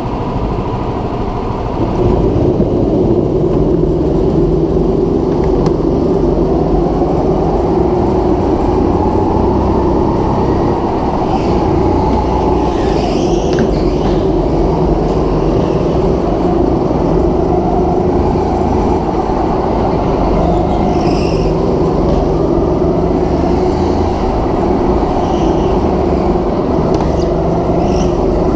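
Go-kart engine running under throttle, heard close up from on board. It picks up about two seconds in and then holds a fairly steady note with small rises and dips.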